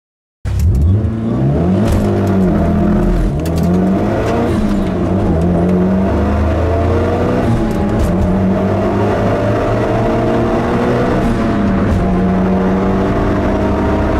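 Mitsubishi Lancer Evolution VII's turbocharged four-cylinder engine heard from inside the cabin under full-throttle acceleration, starting about half a second in. The engine note climbs through each gear and drops back at each upshift, about five times.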